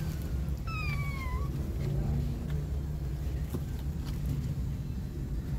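A kitten mewing: one high, thin call that falls in pitch about a second in, with a fainter mew just before. A steady low rumble runs underneath.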